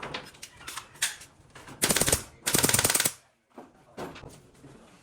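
Two short bursts of rapid-fire mechanical clatter from a power tool, about half a second each, close together around the middle, with lighter scattered knocks and taps of woodwork before and after.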